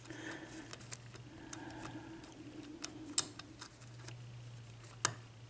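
Small metal clicks and faint scraping of a lock pick being worked in a Schlage 6-pin cylinder lock. The clicks are scattered, with the sharpest a little after three seconds in and another about five seconds in, over a faint steady hum.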